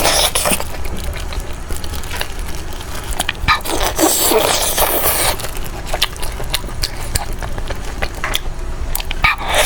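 Close-miked mukbang eating sounds: biting and chewing with many sharp clicks and crackles, and a longer noisy stretch of chewing about four to five seconds in.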